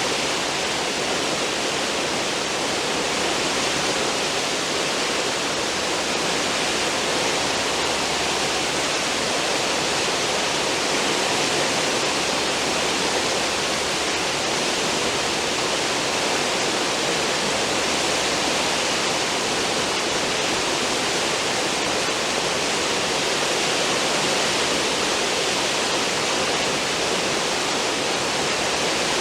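Steady rush of churning seawater in a cruise ship's wake.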